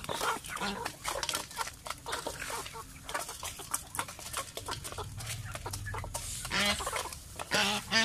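Chickens clucking and squawking while feeding, with sharp pecking clicks against a metal feed bowl and a few louder calls in the second half.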